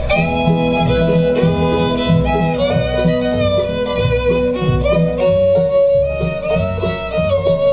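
Live bluegrass band playing a song's instrumental introduction, with the fiddle carrying the melody over a guitar rhythm.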